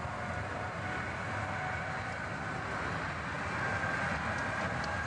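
Twin-engine jet airliner at takeoff thrust on its takeoff roll: a steady rushing engine noise with a faint whine that rises slightly and grows a little louder toward the end.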